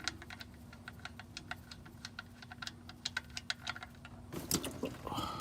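Socket ratchet clicking in quick, irregular runs as it backs out a tight 17 mm oil drain plug. A louder burst of noise comes near the end.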